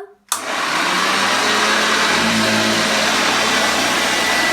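Early-type Hoover Junior 1334A upright vacuum cleaner switched on: its motor starts suddenly, spins up within about half a second, then runs steadily with a high whine. It is a smooth-running motor.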